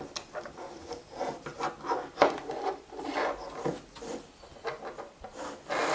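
Irregular rubbing, scraping and light knocking from wires and small parts being handled and moved about on a bench, with a few sharper clicks.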